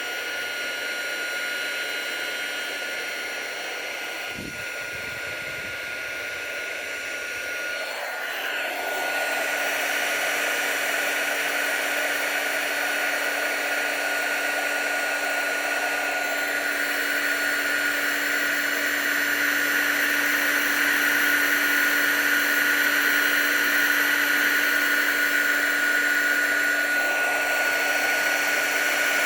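Hot-air blower running steadily with a fan whoosh and a steady whine, heating heat shrink tubing until it shrinks and its glue lining melts. It grows louder about eight seconds in.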